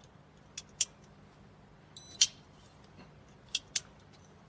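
Zinc-alloy fingerprint padlock unlocking: a short high electronic beep and at once a sharp click as the shackle pops open, about two seconds in. A quick double click comes shortly before and again near the end as the lock is handled and shut.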